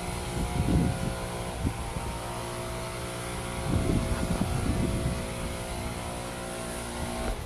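A motor engine running at a steady pitch, with a few low gusts of rumble over it; the engine sound cuts off sharply near the end.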